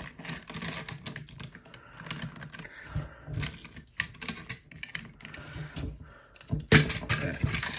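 Plastic Transformers Ultra Magnus action figure being handled and posed: irregular small clicks and taps of its plastic parts and joints, with one louder knock a little before the end.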